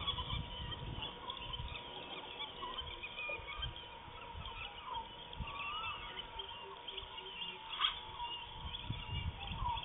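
Open-air ambience of small birds chirping and calling all through, over a steady thin hum. Low wind rumble on the microphone at the start and again near the end, and a single sharp click about eight seconds in.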